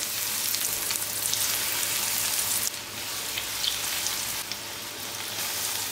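Breadcrumb-coated chicken skewers shallow-frying in hot oil in a pan: a steady sizzle with fine crackles, dropping a little about halfway through.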